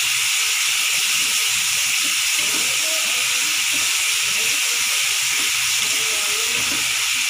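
Onion-tomato spice masala sizzling steadily in mustard oil in a wok as a spatula stirs it: the masala is being fried down (kasha).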